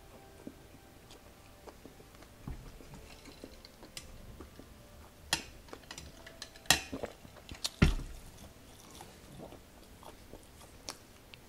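Close-up eating sounds: Korean fried chicken being chewed, with a sip from a glass of cola midway. Several sharp clicks come in the middle, and a single knock near the end of them is the loudest sound.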